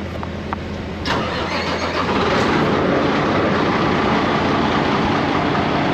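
An engine starts about a second in and then runs steadily and loudly.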